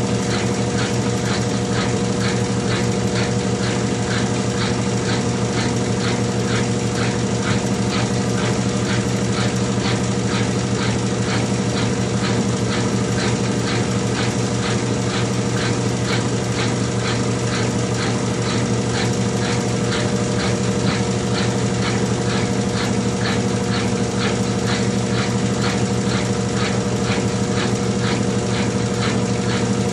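Consul 12 kg CWH12 top-loading washing machine running steadily through its final spin, its motor humming with a regular ticking of about two to three clicks a second.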